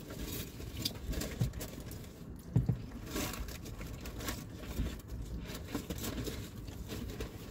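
Close-up eating sounds: chewing, with the irregular scrape and tap of a plastic utensil in a cardboard takeout box and rustling packaging.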